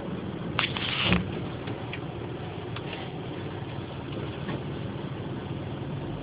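A vehicle engine running steadily with a low hum. A brief noisy burst comes about half a second in.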